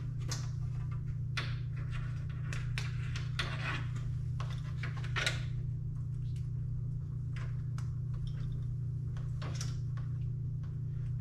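Plastic wiring-harness connectors and loom clicking and knocking as an auxiliary light harness is handled and plugged in: a scatter of short, irregular clicks over a steady low hum.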